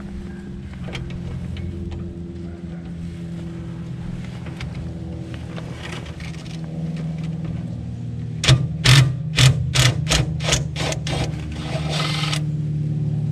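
Half-inch cordless impact wrench hammering at a rusted muffler bracket bolt in a string of short trigger bursts, then one longer burst near the end. A steady low hum runs underneath.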